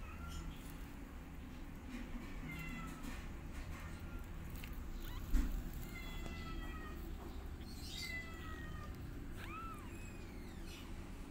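Two-week-old kittens mewing: several thin, high-pitched calls, most of them falling in pitch, one rising and falling near the end. A single sharp thump comes about five seconds in.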